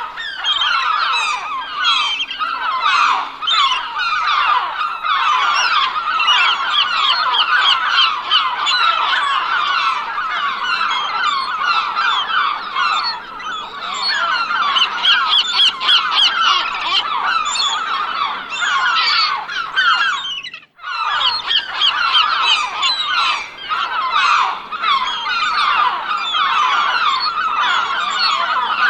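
A flock of gulls calling: many overlapping cries that run on without a gap, except for one brief sudden break about two-thirds of the way through.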